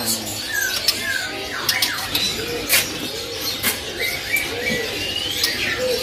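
Several caged birds chirping and calling: short whistled notes that slide up and down, mixed with brief squawks and scattered sharp clicks.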